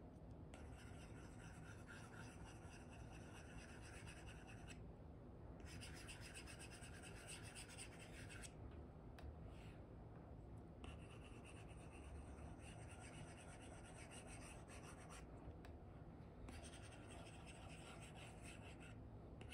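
Apple Pencil 2 with an Elecom nib scratching across an Elecom paper-like film on an iPad as it draws, faint. The pen moves in four long runs of strokes, each a few seconds, with pauses of about a second between and a brief touch about nine seconds in.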